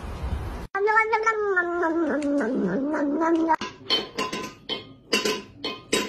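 Wind rumbling on the microphone, cut off under a second in. Then a cat's long, drawn-out yowl lasting about three seconds and falling in pitch. Then a small steel bowl clinking and ringing on the floor several times as a cat knocks at it.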